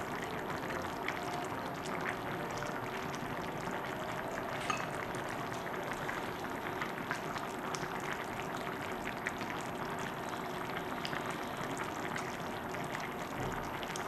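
Galbijjim, Korean braised short ribs, simmering in its sauce in a pot: steady bubbling with many small scattered pops.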